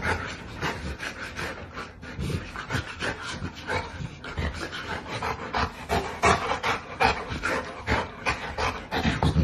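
A dog panting, a steady run of short breaths at about two to three a second.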